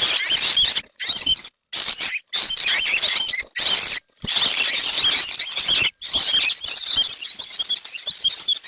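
Baby birds' high-pitched chirping, a dense chorus of calls coming in short stretches that start and stop abruptly, with brief silent gaps between.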